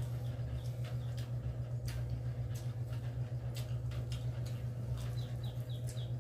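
Close eating sounds: lip smacks, sucking and small sharp clicks and crackles as cooked shrimp are peeled by hand and eaten, over a steady low hum.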